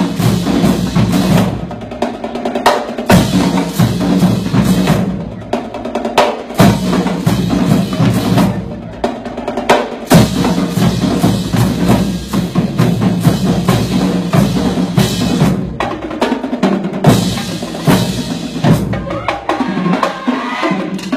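High school drumline playing a fast, dense cadence of snare rolls and bass-drum hits, without a break.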